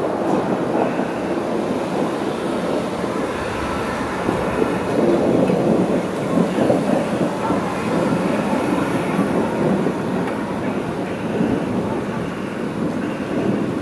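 Thunder rolling in a long, continuous rumble with no sharp crack, easing slightly near the end.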